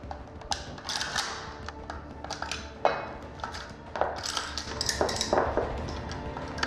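AK-47 rifle being field-stripped at speed: a quick, irregular run of metallic clicks, clacks and knocks as parts are pulled off and set down, with one louder knock about three seconds in.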